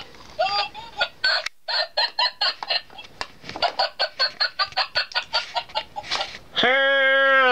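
A rapid run of short cackling calls, about five a second. Near the end comes one long held call that drops in pitch as it ends.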